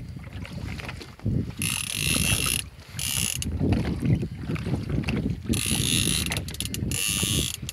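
Fishing reel's ratchet clicking in four bursts of about half a second to a second each, while a hooked shark is played on the rod. A steady low rumble runs underneath.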